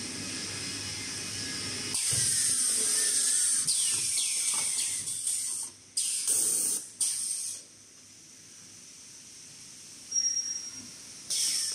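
Automatic toilet-paper roll packing machine running: a low steady noise at first, then loud hissing from about two seconds in that breaks into short bursts around six and seven seconds, with two more short hisses near the end.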